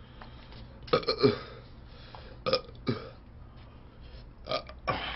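Close-miked mouth sounds of a man eating with chopsticks from a bowl: about six short, loud throat-and-mouth noises, each dropping in pitch, coming in clusters about a second in, midway and near the end.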